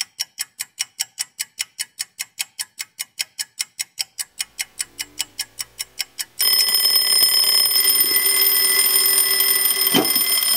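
Clock ticking fast and evenly, about four ticks a second. About six seconds in, an analog alarm clock starts ringing steadily, with a knock near the end as a hand reaches to shut it off.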